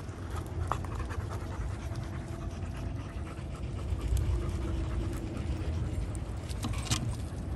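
Dogs panting, with scattered short clicks over a steady low rumble and a sharper noise near the end.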